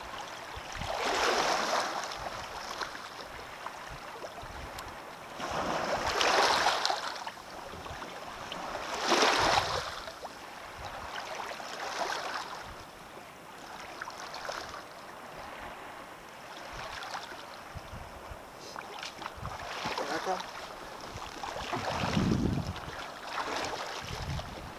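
Shallow seawater washing and lapping over a stony shoreline, swelling in surges every few seconds.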